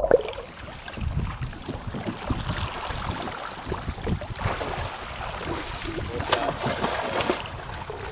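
Wind buffeting the microphone and choppy sea water slapping and sloshing around a kayak, with a brief sharp click about six seconds in.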